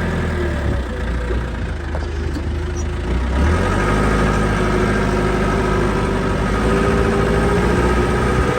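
Cat 416 backhoe's diesel engine running steadily. About three and a half seconds in, its note grows fuller and a little louder.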